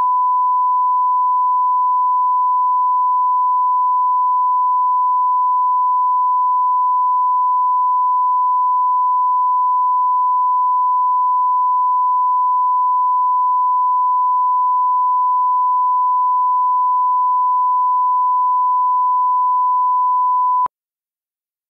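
Steady 1 kHz line-up test tone, the reference tone laid under colour bars at the head of a video master, held at one pitch and level, cutting off abruptly about a second before the end.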